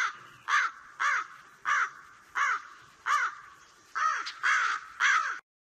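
A crow cawing about nine times in a steady series, each caw rising and falling in pitch, stopping abruptly near the end.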